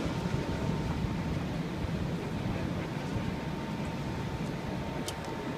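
Steady city street background: a low rumble of traffic with a faint, steady high hum running through it.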